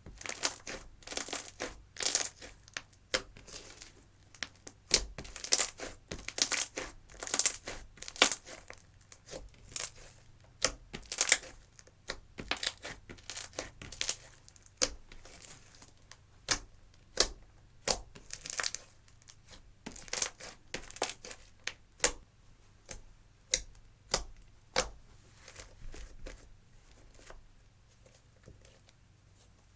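Hands squishing and stretching clear slime mixed with eyeshadow, giving irregular sticky crackles and pops about once or twice a second. The crackles thin out near the end.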